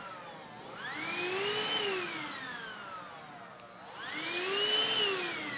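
Handheld vacuum cleaner running over a rug, its motor whine gliding up and down in pitch in slow swells: it rises for about a second, then falls for about two, twice over.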